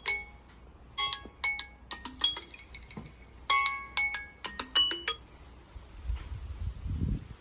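Phone or tablet alarm/timer tone: a bright, marimba-like melody of quick notes, repeating in short phrases, that stops about five seconds in. Low rumbling bumps follow near the end.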